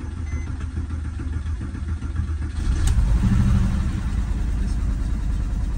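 A 2002 Porsche 911 (996) flat-six being started: the starter cranks for about two and a half seconds, then the engine catches with a brief rev and settles into a steady idle. It is the first start after a replaced, reprogrammed immobilizer cured a no-crank, no-start fault.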